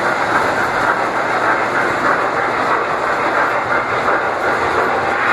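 O scale model train running on the layout's track, a steady, even rolling noise without breaks.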